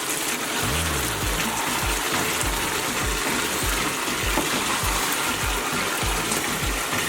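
Chicken and potatoes frying in curry in a pot, with a steady hiss of sizzling. Background music with a steady low beat plays under it.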